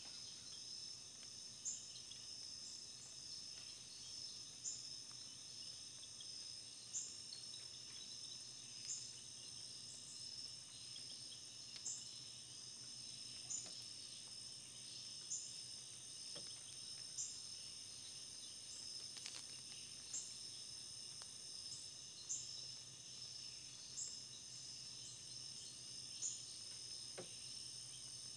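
Steady high-pitched chorus of insects, cricket-like, with a short sharp chirp repeating about every two seconds.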